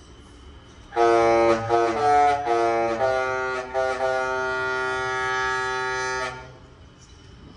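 Disney Dream's musical ship horn playing a short tune: a quick run of loud, reedy horn notes, then one long held note that stops abruptly.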